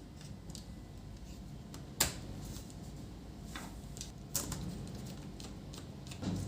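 Scattered small clicks and taps of a screwdriver working screws out of a Fujitsu laptop's plastic case, the sharpest about two seconds in and another a little after four seconds.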